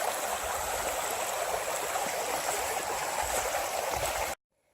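Snowmelt runoff stream running steadily, cutting off abruptly near the end.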